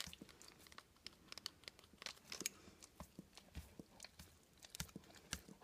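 Scissors snipping through a gauze dressing on a dog's paw: faint, irregular snips and crinkles of the bandage being cut away.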